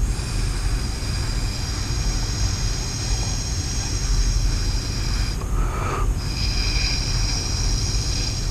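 A long steady blow of breath through a drinking straw to push wet acrylic paint across a canvas, with a faint whistle. About five seconds in it stops for a quick breath, then the blowing resumes.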